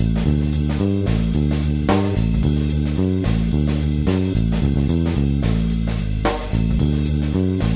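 Background music track: a bass guitar and guitar line over drums with a steady beat.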